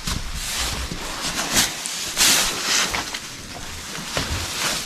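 Dry hay rustling and crackling in irregular strokes as it is handled and pulled at.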